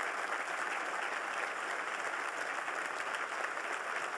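Audience applauding steadily at the end of a speech.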